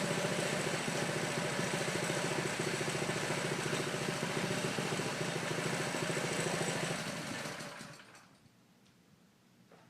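Harbor Freight Predator 212cc 7 hp single-cylinder engine on a home-built mini bike running steadily, then winding down and stopping about seven to eight seconds in.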